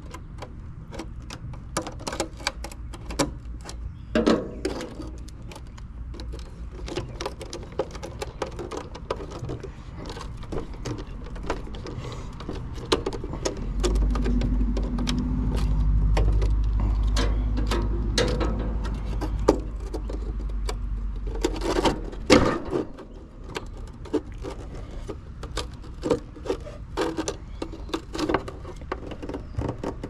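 Hand tools and metal parts being handled during wiring work on an air conditioner: scattered clicks, clinks and scrapes. A low rumble runs for several seconds midway and ends with a sharp knock.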